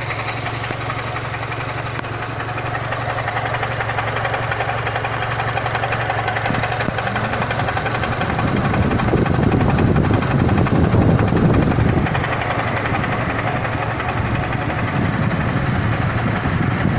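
Renault Symbol 1.6 16v four-cylinder engine idling with a steady drone; about halfway through, a louder, rough noise swells up and eases again a few seconds later. This is the unexplained engine noise the owner is trying to trace.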